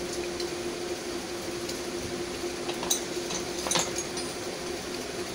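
Metal hand tools being handled: two light clinks, about three seconds in and again under a second later, over a steady background hum.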